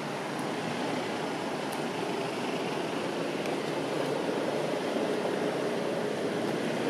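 Steady outdoor background noise, an even hiss and rumble without any single clear sound standing out.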